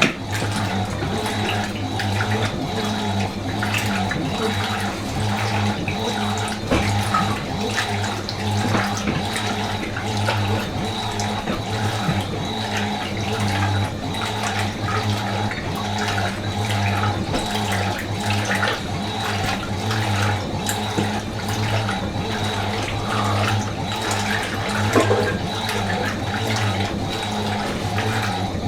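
Fisher & Paykel MW512 washing machine running: a steady rush of water with a constant low hum underneath.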